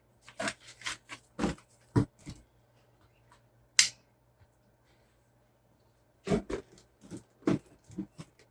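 Irregular short clicks, taps and rustles of RC kit parts and packaging being handled, with one sharp click about four seconds in and a quick cluster of taps near the end.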